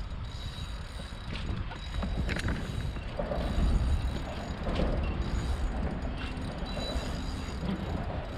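Steady low rumble of wind on the microphone, with a faint thin high whine and a few light clicks.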